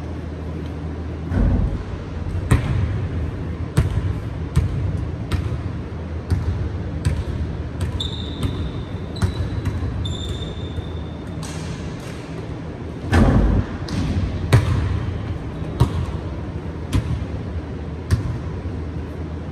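Basketball bouncing on a hardwood gym floor, thuds coming irregularly about once a second, with two heavier thumps about a second and a half in and about thirteen seconds in. Short high sneaker squeaks come near the middle, over a steady low hum in the large hall.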